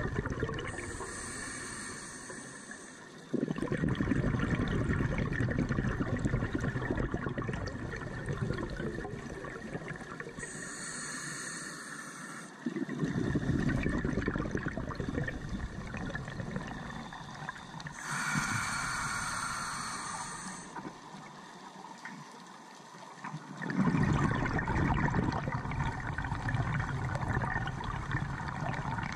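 Scuba diver breathing through a regulator, heard through the camera's underwater housing: three breath cycles, each a hissing inhale of about two seconds followed by a longer bubbling exhale.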